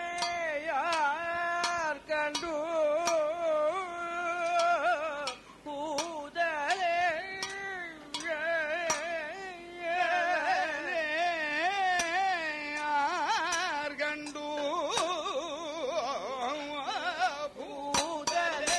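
Male Kathakali singer singing in raga Bhairavi, long held notes with dense, fast pitch ornaments, pausing briefly between phrases. A few sharp strikes sound now and then.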